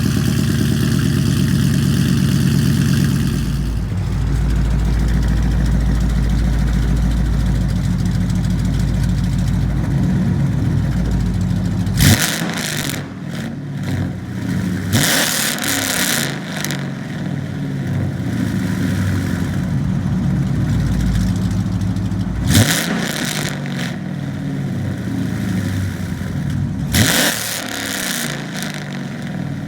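Straight-piped Dodge Charger/Challenger exhaust idling, then revved four times in the second half. Each rev jumps sharply and falls back to idle.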